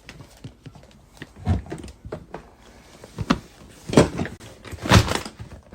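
A series of irregular knocks and clunks of hard objects being handled, the two loudest about four and five seconds in.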